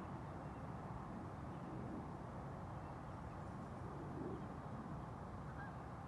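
Faint outdoor ambience heard through an open screened window: a steady low rumble with a few sparse, soft bird calls.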